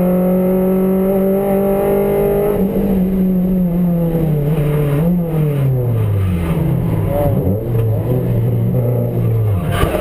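MG Metro race car's four-cylinder engine heard from inside the cabin, running at steady high revs, then the revs falling away as the car slows, with a brief blip along the way. Just before the end comes a hard impact as the car T-bones a car that has spun in front of it.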